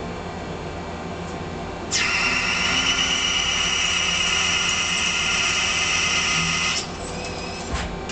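Lathe running, and about two seconds in a drill bit fed into the spinning plastic stock gives a loud, steady high-pitched squeal for about five seconds, then stops abruptly.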